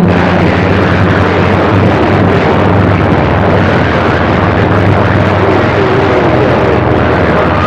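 CB radio receiver hissing loud, steady static on an open channel between transmissions, with a low hum under it and faint wavering tones from distant signals about two-thirds of the way through.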